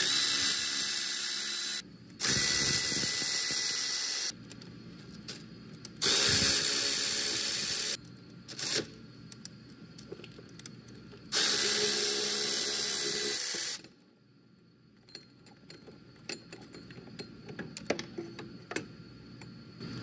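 Cordless Milwaukee power tool on a socket extension, run in four bursts of about two seconds each with one short blip between the third and fourth, working the alternator mounting bolts loose. Light clicks of metal handling follow near the end.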